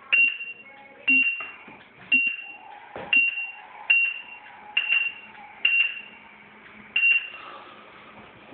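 Proliner 3D digitizer beeping as it records measurement points: about eight short, high beeps, each with a sharp click at its start, roughly one a second, stopping near the end.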